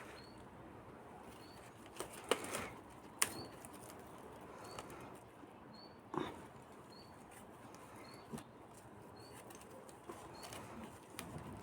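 Kittens scrabbling about: scattered soft knocks, scratches and rustles, the loudest a couple of seconds in, again about a second later, and around six seconds in.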